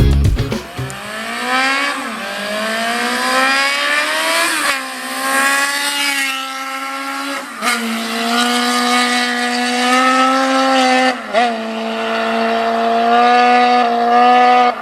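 Engine exhaust through a handmade Kamikaze aftermarket silencer, pulling through the gears. The note rises, drops sharply at each shift (about two, five, seven and a half and eleven seconds in), then holds a steady, singing howl.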